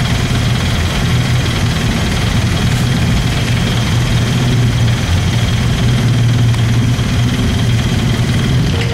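Vehicle engine running steadily with a strong low hum, heard from inside the open passenger compartment; it starts and stops abruptly.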